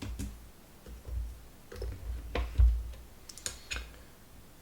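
Irregular light clicks and taps of hands handling the parts of a disassembled Dyson fan, with a louder click and a low knock about halfway through and a quick run of clicks shortly after.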